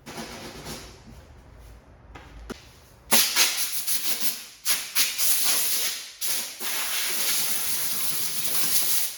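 Power sanding on fiberglass bodywork: some fainter scraping, then from about three seconds in a loud, steady hiss with a few brief dips.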